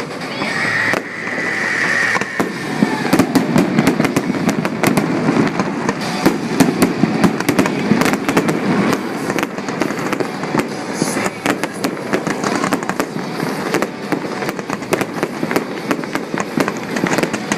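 Fireworks display: a dense run of rapid pops and crackles over a continuous rumble, with a brief high whistle about a second in.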